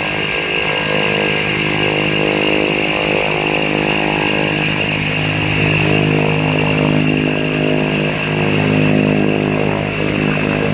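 A Cessna 208 Caravan's Pratt & Whitney PT6A turboprop engine running steadily after start-up: a high turbine whine over the propeller's even hum.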